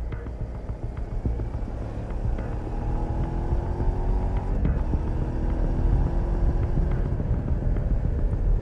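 A motor vehicle engine running under a heavy low road-and-wind rumble. Its pitch climbs steadily, drops briefly a little under halfway through, then climbs again: accelerating through a gear change.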